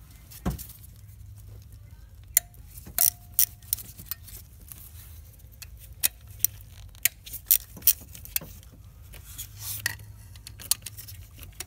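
Socket wrench on an extension undoing small nuts on a diesel engine's top rail: scattered sharp metallic clicks and clinks of the socket and tool, a few of them with a short ring.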